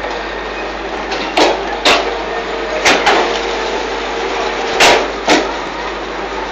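Fly ash brick-making machine running: a steady mechanical noise with a series of sharp clanks, several coming in close pairs.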